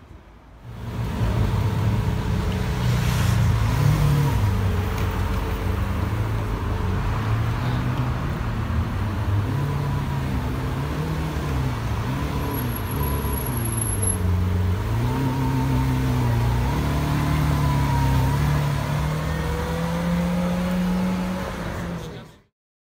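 Lamborghini Centenario's V12 engine running at low revs, its pitch rising and falling gently, then climbing steadily near the end. It starts abruptly about a second in and cuts off just before the end.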